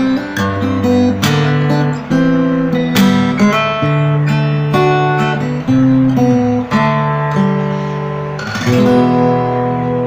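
Acoustic guitar strung with D'Addario EZ910 85/15 bronze light-gauge strings, played fingerstyle: plucked melody notes over bass notes. Near the end a strummed chord rings out.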